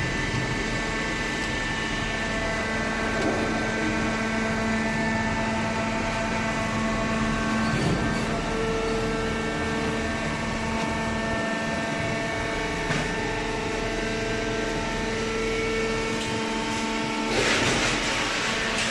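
Vertical hydraulic baler's power unit running steadily, a hum and whine of several held tones over mechanical noise, with a louder hiss near the end.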